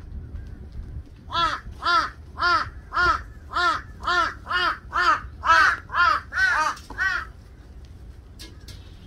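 A crow cawing about a dozen times in a steady series, roughly two harsh caws a second, then stopping.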